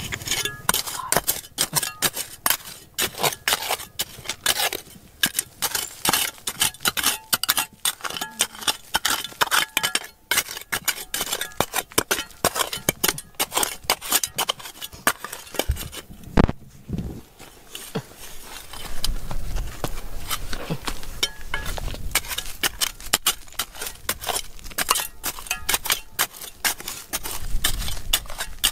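Hand tools clinking and scraping against rock and stones, many sharp strikes a second, with a few short pauses.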